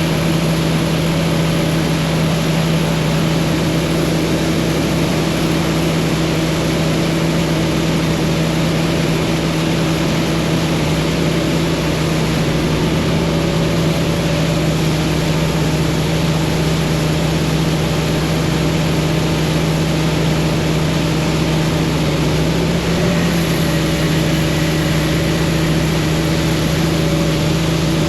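Farm machinery engine running steadily at constant speed: an even, unchanging hum with one strong low tone, shifting slightly about three-quarters of the way through.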